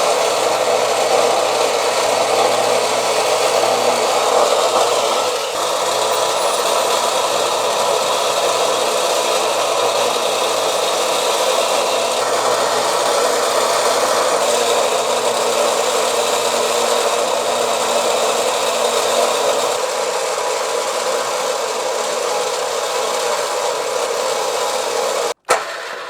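Warn M12000 electric winch running steadily, winding the new line onto its drum under tension. It stops abruptly near the end.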